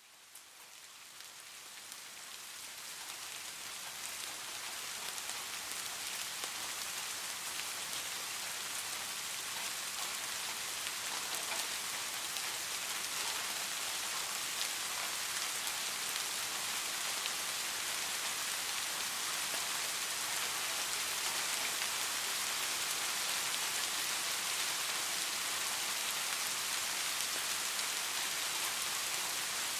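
Steady rain falling and pattering on surfaces, fading in over the first few seconds and then holding even.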